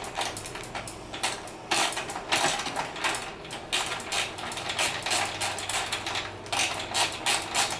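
Ratchet wrench clicking in repeated short runs as it turns the adjuster bolt of a motorcycle chain adjuster, moving the rear axle block to set the wheel's position.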